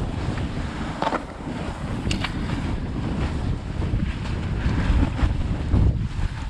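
Wind buffeting a GoPro's microphone as a fish-shaped snowboard rides through deep powder, the board's steady hiss through the snow mixed with a low rumble. A few short scrapes or knocks stand out about one, two, five and six seconds in.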